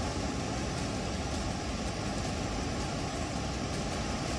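Steady rushing noise of cars driving through deep floodwater, with engine rumble underneath.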